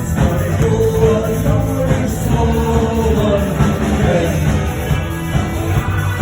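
Rock song playing, with a full band and a sung melody line.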